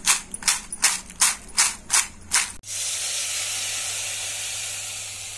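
Fried potato chips rattling and crackling in a glass bowl as it is tossed, about seven crisp bursts a little under half a second apart. Just after halfway they cut off suddenly and a steady steam-like hiss takes over, slowly fading.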